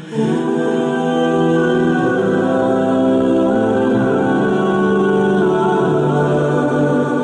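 Slow background music with long held notes.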